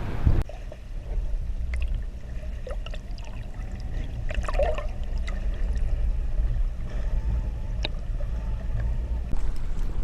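Steady low rumble on a fishing boat, with light water gurgling and a few small knocks and clicks.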